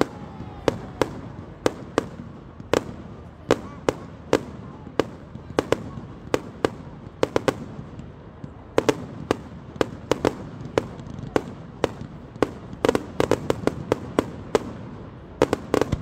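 Fireworks display: a steady series of sharp bangs as shells burst overhead, about one or two a second, coming faster in the second half.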